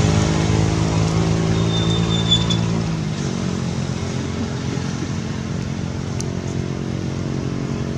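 A motor vehicle engine running steadily, a little quieter from about three seconds in, with a brief high chirp about two seconds in.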